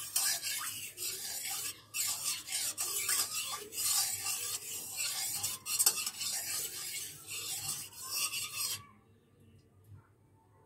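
Quick, rough scraping strokes in a steady run, stopping abruptly about nine seconds in.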